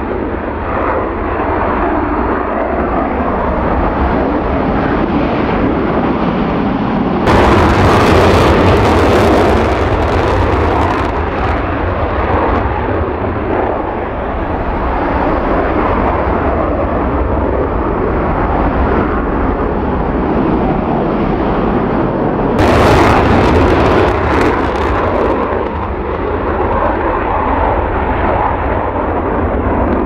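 F-15J twin-engine fighter jets taking off on full afterburner, a continuous loud jet roar. The roar steps up suddenly about 7 and 23 seconds in, then slowly eases.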